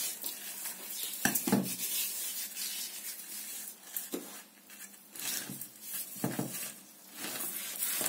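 Hands rubbing a coarse salt and spice mix into a whole raw mackerel over a stainless steel pot: irregular gritty scraping, with a few light knocks against the pot.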